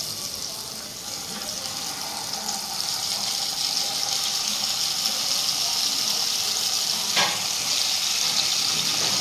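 Marinated chicken pieces sizzling in hot oil in a non-stick kadai as they are laid in, the sizzle growing louder a few seconds in. A short sharp knock about seven seconds in.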